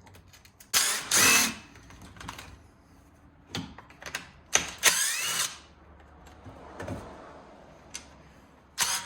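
Power driver backing screws out of a plastic engine casing in a few short runs, one of them with a rising whine as the motor spins up, with light clicks of the tool and screws in between.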